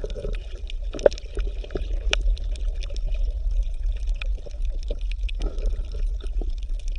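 Water gurgling and trickling, with many small clicks over a steady low hum.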